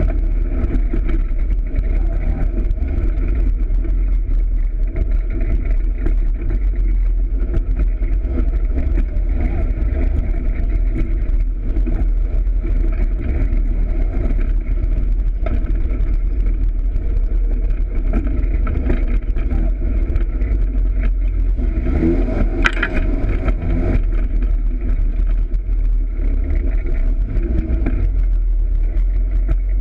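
Engine of a Polaris RZR side-by-side running under way along a dirt trail. About 22 seconds in it revs up and drops back, with a sharp knock.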